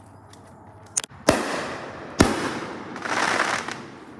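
Aerial fireworks bursting. A small pop about a second in is followed by two loud bangs about a second apart, each trailing off over a second or so, and then a noisy rush a little after three seconds in.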